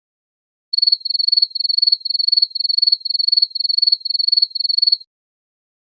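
Cricket chirping sound effect: a high, single-pitched trilled chirp repeating about twice a second, starting just under a second in and stopping about a second before the end.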